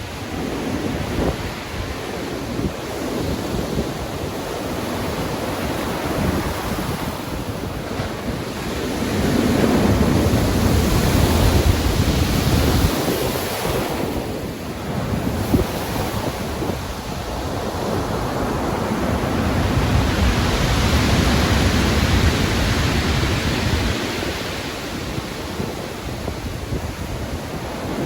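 Stormy ocean surf: heavy waves breaking and washing in as a continuous roar that swells twice, about a third of the way in and again about two-thirds of the way in.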